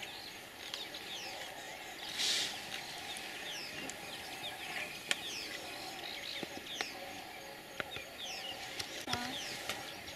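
Many wild birds calling in a steady chorus of short, falling chirps. A brief rustle comes about two seconds in, and a few sharp clicks come in the second half.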